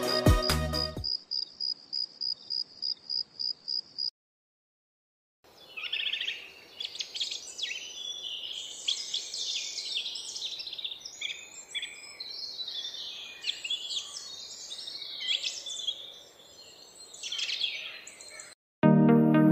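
Several small birds calling and chirping together, a busy high-pitched twittering that swells and fades. Before it comes a short stretch of one high note repeated about three to four times a second, which cuts off abruptly.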